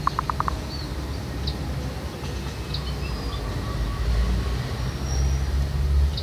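Steady low rumble with faint, short, high bird chirps scattered through it. A fast run of pulsed notes fades out in the first half second.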